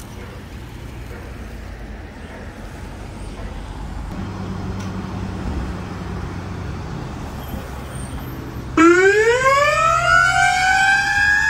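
Low vehicle engine and traffic noise, then near the end a Hatzolah ambulance siren switches on loudly. Its pitch climbs steeply, then levels off into a steady high wail.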